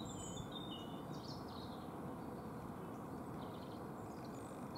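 Steady low outdoor background rumble, with small birds chirping a few times, mostly in the first second.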